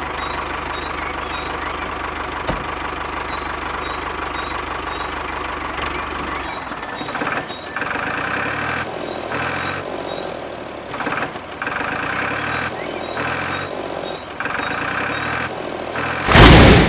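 An engine running steadily, the sound breaking into short on-and-off stretches about halfway through, with a brief loud burst near the end.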